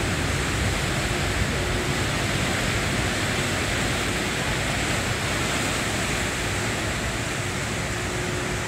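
Car ferry's propeller wash churning in the slip as the boat pulls away from the dock: a steady, loud rush of water with a low rumble beneath it.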